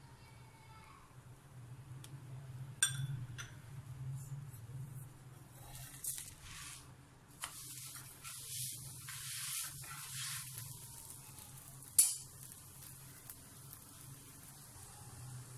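Radish paratha sizzling in oil on a hot griddle, the hiss swelling for a few seconds in the middle as the spatula works it. There are sharp clicks near the start and a louder single click about twelve seconds in.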